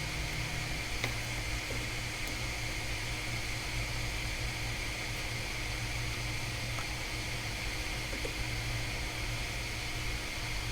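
Steady fan-like hiss with a low electrical hum, with a faint click about a second in.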